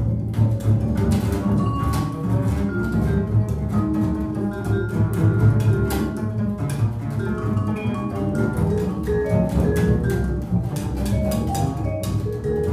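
Two double basses playing a dense, low passage full of sharp attacks, with short high notes struck on a mallet keyboard instrument over them.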